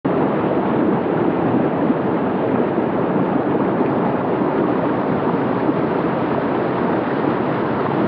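Fast stream of white water rushing over boulders, a steady, even rush.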